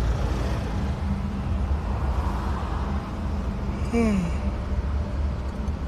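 Steady low rumble of a moving car heard from inside the cabin. About four seconds in, a person makes a short vocal sound that falls in pitch.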